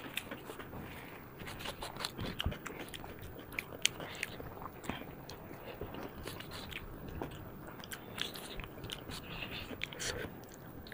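Close-miked eating sounds: chewing, lip smacking and wet mouth noises from two people eating rice and chicken curry by hand, with scattered short clicks as fingers work food on steel plates.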